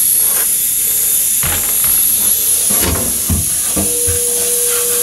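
A steady, loud hiss, with a few soft knocks in the middle and a thin steady whine coming in about four seconds in.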